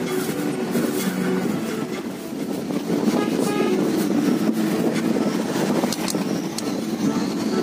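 A car's engine and tyre noise heard from inside the cabin while driving, a steady low rumble.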